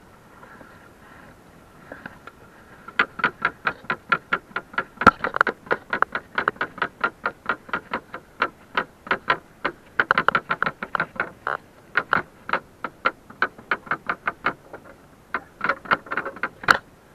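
Rapid, evenly paced wooden knocking on a small outrigger boat, about four knocks a second. It starts about three seconds in and breaks off briefly twice.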